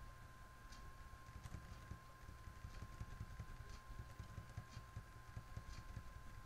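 Faint, irregular clicks of computer keys pressed one at a time as the cursor is stepped down through a text file. Under them runs a faint steady high whine and a low hum.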